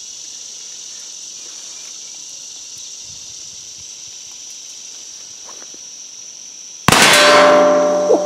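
A single shot from a .50 caliber Lyman Great Plains black-powder percussion pistol about seven seconds in, followed by the ringing of the hog target it hit. Insects buzz steadily throughout.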